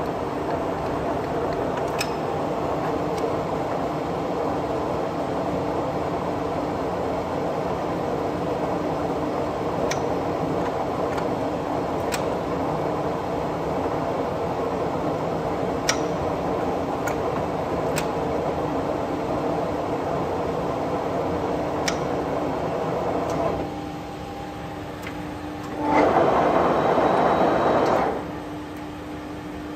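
Tarnow TUJ50M centre lathe running under power: a steady mechanical hum with gear tones and a few light clicks. About 23 seconds in it drops quieter. Near the end a louder, noisier two-second burst comes and goes, then the machine runs on more quietly.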